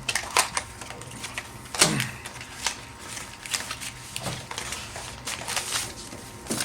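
Irregular clicking and crinkling of packaging and small parts being handled while a rangefinder kit is unpacked, with a few louder clacks.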